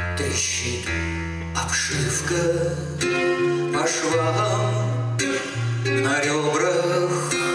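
A man sings a song in Russian, accompanying himself on acoustic guitar; the sung lines come and go over the sustained guitar chords.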